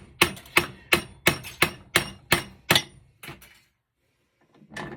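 Rapid hammer blows on a copper-and-aluminium heat sink, about three a second for some three seconds, then two lighter taps, a pause, and one more strike near the end. This is heat-sink parts being pounded through to separate the copper from the aluminium.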